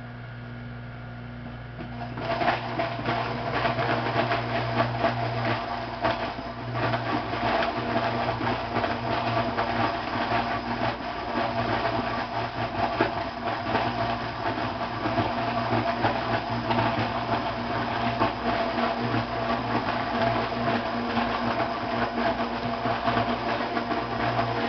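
Zambelli Mulimix electric fruit grinder (scratter) running with a steady hum, then, about two seconds in, chopping a load of cider apples into pulp: a dense, continuous crunching clatter over the motor.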